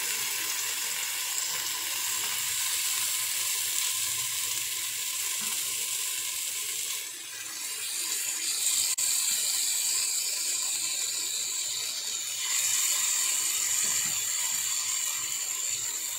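Chicken pieces sizzling on a hot greased nonstick grill pan as more pieces are laid on, a steady hiss that grows louder about twelve seconds in.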